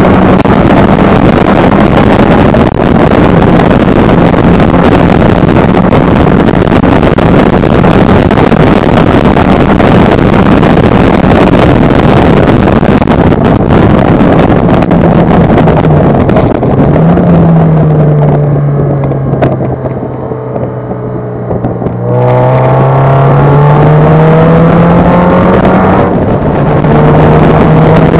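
Inside an open-top MGF at speed on track, its Rover K-series four-cylinder engine holds steady revs under heavy wind rush. About two-thirds of the way through the engine note drops and the wind fades as the car slows. A few seconds later the revs climb again as it accelerates back up to speed.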